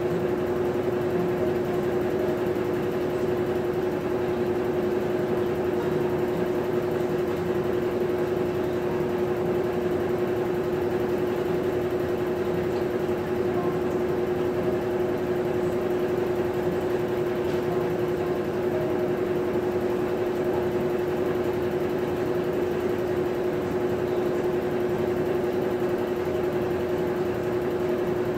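Maytag top-load washing machine running: a steady motor hum with one constant tone that does not change.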